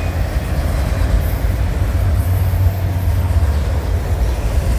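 Freight train of intermodal and autorack cars rolling past, a steady loud rumble of wheels on the rails.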